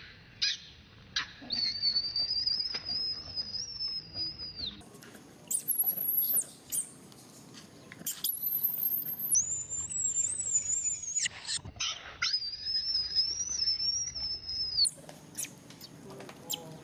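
Baby macaque squealing: a run of long, high-pitched squeals, each one to three seconds long with a wavering pitch, some much higher than others.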